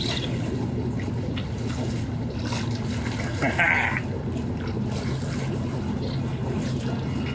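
Water lapping and sloshing around a boat over a steady low hum, with a short splash about three and a half seconds in as a small bass is swung up out of the water.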